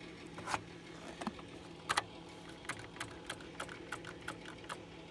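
A dozen or so irregular light clicks and small metallic rattles of hands working the controls and parts of an old lawnmower V-twin engine.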